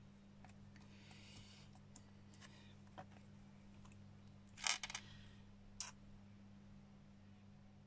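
Faint handling sounds of small craft items on a cutting mat: scattered light clicks and taps, with a quick cluster of sharp clicks just before five seconds in and one more about a second later. A steady low hum runs underneath.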